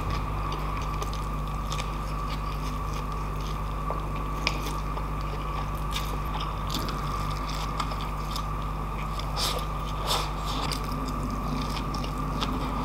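Close-miked chewing of mouthfuls of rice and pork dinakdakan eaten by hand, with scattered wet clicks and smacks of the mouth. A steady low hum runs underneath.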